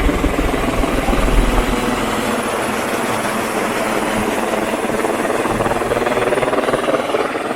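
Helicopter running, its rotor making a fast, steady chop; a deep rumble under it fades out about two seconds in.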